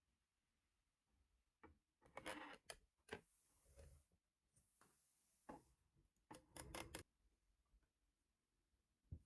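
Faint clicks and short scraping, rustling noises of small hard objects being handled, in clusters from about two seconds in until about seven seconds, with a single click near the end.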